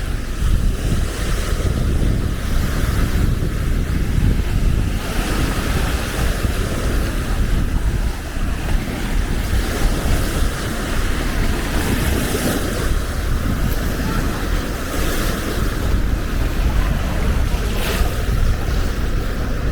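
Wind buffeting the microphone, a steady low rumble, over the wash of small Baltic Sea waves on the beach, which swell now and then.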